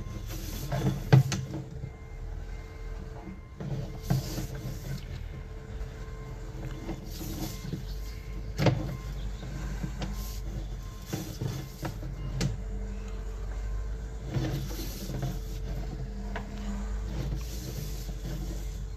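Sewer inspection camera push cable being pulled back through the pipe. A steady low machine hum runs under scattered clicks and knocks as the cable and camera head move.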